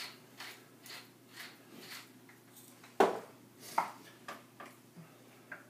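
Hand pepper grinder being twisted, giving a dozen or so short gritty grinds about twice a second, one louder about three seconds in.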